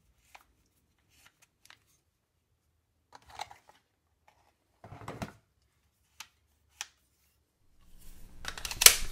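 Scattered light plastic clicks and rattles of a cordless soldering iron and its plastic blister packaging being handled, with quiet gaps between them. About eight seconds in, a low steady hum comes in, and a single sharp click, the loudest sound, follows near the end.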